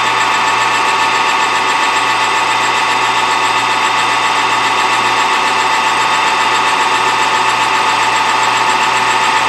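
Metal lathe running steadily, its motor and gears making a constant whine and hum.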